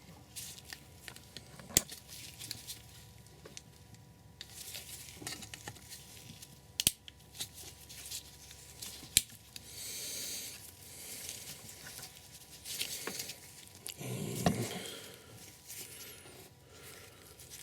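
Hands working the plastic clips of an engine-bay housing: scattered sharp plastic clicks and scraping, a short rasping scrape about ten seconds in and a dull bump a few seconds later.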